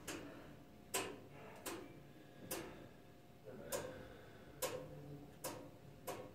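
Faint, sharp ticks about once a second, slightly uneven in spacing.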